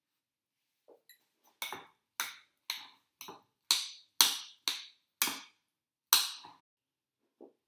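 A metal utensil clinking against a ceramic bowl as chunks of avocado are mashed and stirred into guacamole: a run of about ten sharp clicks, roughly two a second, with a couple of faint soft knocks before and after.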